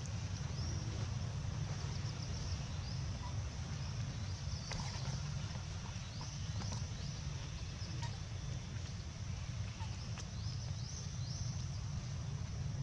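Outdoor ambience: a steady low rumble, with faint short high chirps repeating every second or so and a few light clicks.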